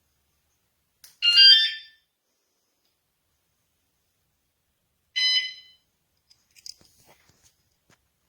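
Electronic bike alarm giving two short chirps about four seconds apart. The first is a quick run of shifting tones; the second is a single shorter beep. A few faint clicks follow near the end.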